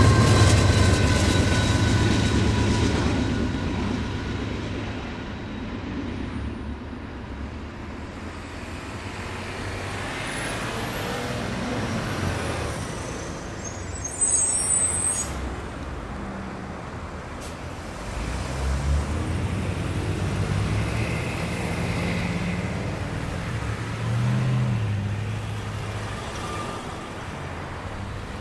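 A Norfolk Southern freight train's trailing locomotive rumbling past and fading away over the first few seconds, then road traffic pulling across the crossing: cars and a school bus accelerating away, with a short air-brake hiss about halfway through.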